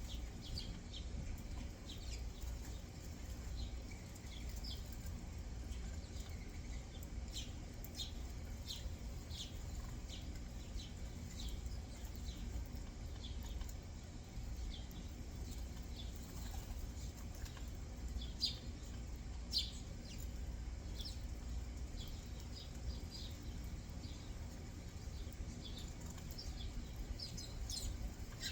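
Backyard songbirds giving many short, high chirps, scattered irregularly with a few louder ones, over a steady low rumble.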